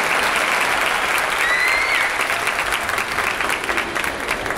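Theatre audience applauding, thinning out toward the end with individual claps standing out. A single short high whistle rises above the clapping about a second and a half in.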